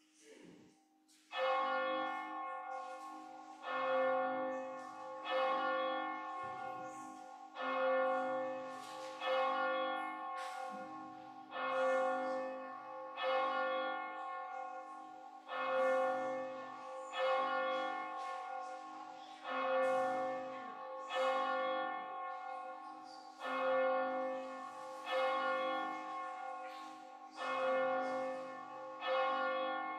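A church bell tolling slowly, one strike about every two seconds, each ringing on and fading before the next.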